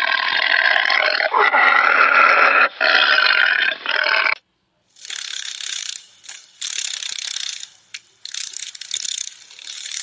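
A long, drawn-out animal call with a rich, wavering pitch, cut off about four seconds in. After a short gap comes a run of dry, rattling buzzes, each about a second long and quieter than the call.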